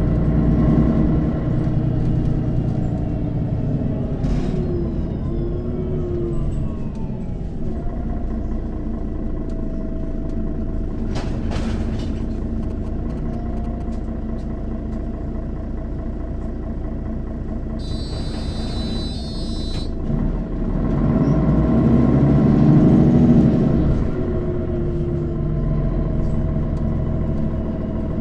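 Mercedes-Benz O 530 Citaro city bus's diesel engine running while the bus drives, its pitch dipping and rising. It pulls harder and louder for a few seconds about three-quarters of the way in. A brief high-pitched sound comes just before that surge.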